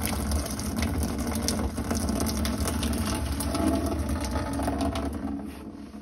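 Hot cooking water pouring from a stainless steel saucepan through its strainer lid into a steel sink, a steady splashing rush with a low drumming. It tapers off near the end as the pot empties.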